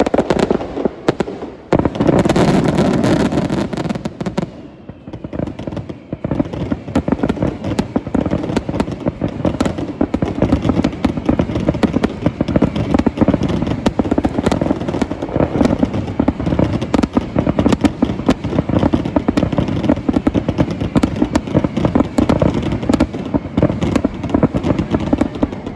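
Aerial fireworks going off in a dense, continuous barrage of rapid bangs and crackling, with a heavier burst about two seconds in.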